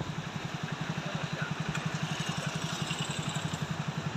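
A small engine idling with a fast, even throb, over the steady rush of floodwater pouring down the river.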